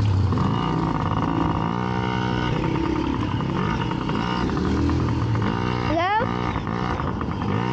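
Small dirt bike engine running, its pitch shifting up and down, with a quick sharp rev about six seconds in.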